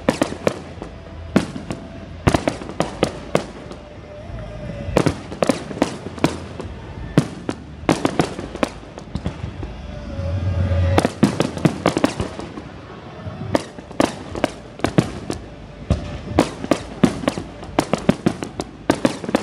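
Aerial fireworks display: a continuous run of sharp bangs and crackling reports from bursting shells, coming in quick clusters, with a heavier low rumble about ten seconds in.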